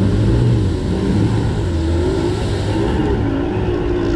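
Bass boat outboard motor running hard, its propeller churning mud and water in a few inches of water while the boat is stuck on a shallow flat. The engine note wavers up and down.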